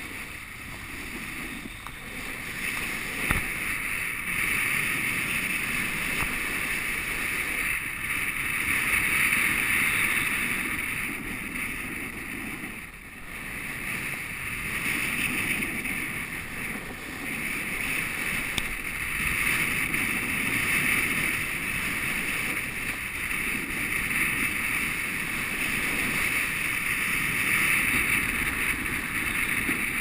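Snowboard sliding and carving down a groomed run of chunky snow: a continuous scraping rush of the board on the snow mixed with wind on the camera microphone, swelling and easing with the turns. A single knock about three seconds in.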